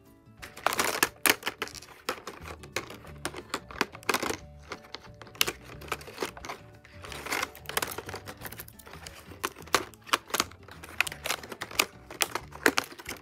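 Quick clicks, taps and rustling from stationery pieces and their packaging being handled and unwrapped, over soft background music.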